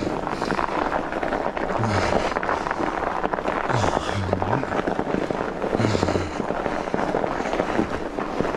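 Fat bike tyres crunching and crackling over wet, packed snow on a groomed trail, with the rider breathing hard, a heavy exhale about every two seconds.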